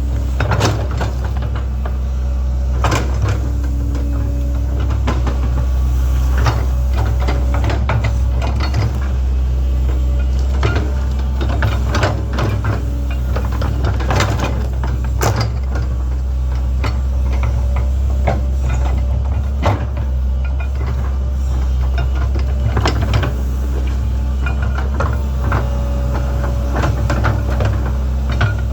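Link-Belt 2700 excavator's diesel engine running steadily under working load, with frequent knocks and clunks from the machine at work digging and placing material.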